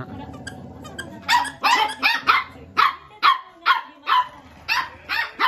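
Corgis playing rough: a low growl at first, then about a dozen sharp play barks from about a second in, around three a second.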